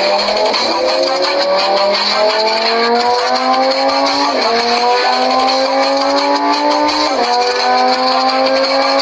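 Vehicle engine accelerating hard through the gears. Its pitch climbs steadily, drops sharply at a gear change about four seconds in and again about seven seconds in, then climbs once more.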